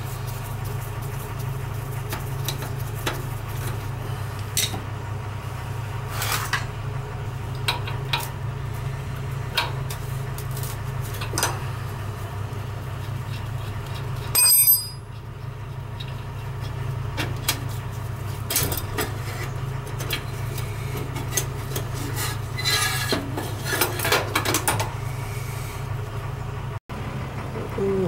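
Scattered clicks, scrapes and metal-on-metal clinks of a screwdriver and parts as the head assembly is unfastened and pulled from a Riello oil burner's housing, with one sharp ringing clink about halfway through. A steady low hum runs underneath.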